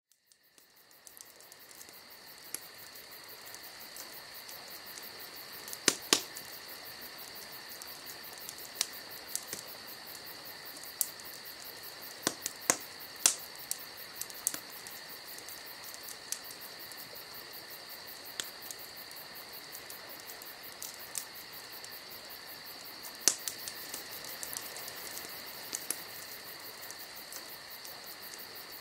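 Steady high-pitched insect chirring that fades in over the first few seconds, with sharp clicks scattered irregularly through it.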